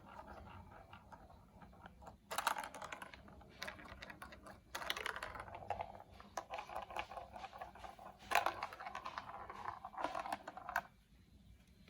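Small hard plastic marble run pieces clicking and clattering, in quick runs of taps that come in three louder bursts with quieter handling between.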